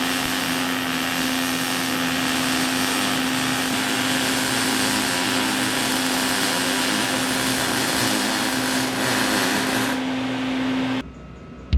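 A motor-driven power tool running steadily, a constant hum under an even hiss, then stopping abruptly near the end.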